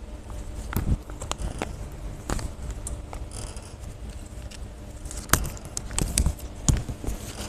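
Continuous band sealer running with a steady low hum, over which come scattered sharp clicks and knocks, the loudest a little past five seconds in.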